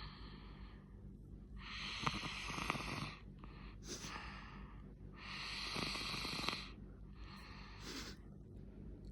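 A sleeping child snoring. Two long, rasping snores come about three and a half seconds apart, each followed by a shorter, fainter breath.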